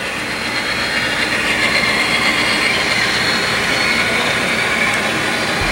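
Steady diesel engine sound from sound-equipped HO-scale model diesel locomotives hauling a train past.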